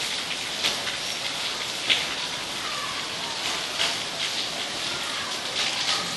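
Heavy rain falling steadily, with an occasional louder drop striking close by.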